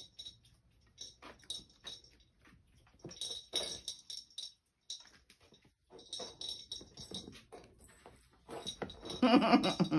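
Kittens batting a plastic tower-of-tracks cat toy, making irregular clusters of light clicking and rattling as the balls run around the track. A woman's voice comes in near the end.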